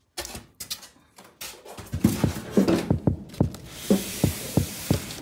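A few faint clicks, then a drum-machine beat starts: short low kick-drum thumps about two and a half times a second, with a steady hiss joining about four seconds in.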